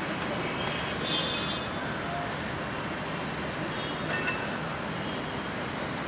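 Steady background traffic noise, with faint high-pitched chirping twice and one short sharp chirp about four seconds in, fitting the alarm calls of an agitated palm squirrel.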